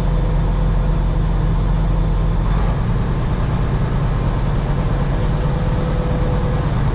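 Heavy truck engine running, heard from inside the cab, with a change in the engine note about two and a half seconds in.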